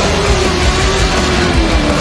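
Loud, steady rock music with electric guitar, mixed with car engine noise.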